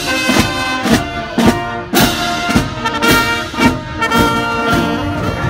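Marching band playing a tune on trumpets, trombones, saxophones and sousaphone over a steady bass drum beat, about two beats a second.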